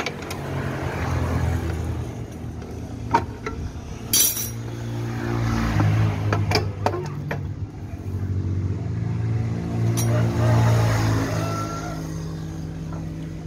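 A motorbike engine running nearby, its hum swelling and fading several times, with a few sharp metal clinks and knocks from hand tools as the scooter's CVT cover is unbolted with a T-handle socket wrench and lifted off.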